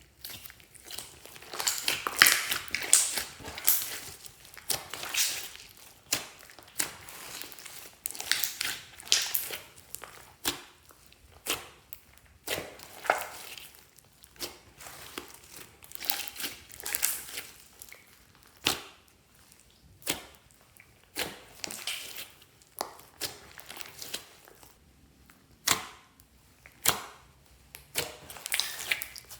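Hands kneading, stretching and squishing slime, giving irregular bursts of sticky crackling and popping with sharp clicks.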